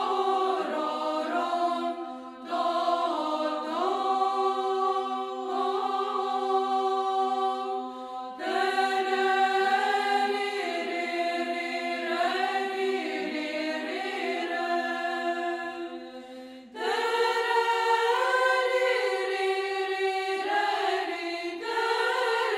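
Unaccompanied choir singing Orthodox church chant, a steady held low note under a moving melody, in long phrases with short breaks. The low held note drops out about three-quarters of the way through.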